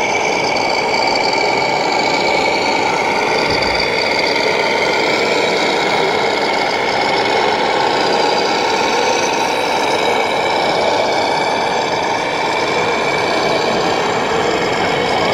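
Steady diesel-like engine running note from an RC model truck, the kind an electronic sound module plays through a small on-board speaker. It holds an even pitch with no revving.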